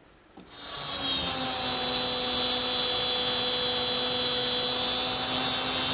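Plunge router with a 3/8-inch bit switching on about half a second in, spinning up to full speed and then running at a steady, high-pitched whine.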